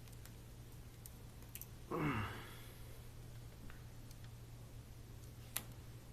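A steady low hum with a few small clicks. About two seconds in, a short sigh that falls in pitch.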